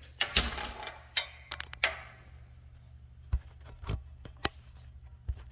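Cardboard bike shipping box being opened and handled: a quick run of sharp snaps and scrapes in the first two seconds, then a few separate knocks.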